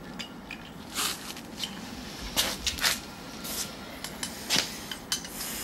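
China coffee cup and saucer being handled: a series of short scrapes and light clinks.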